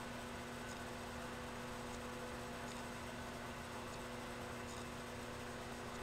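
Microwave oven running, a steady electrical hum while it heats an egg in its shell. Faint light ticks recur about every two-thirds of a second.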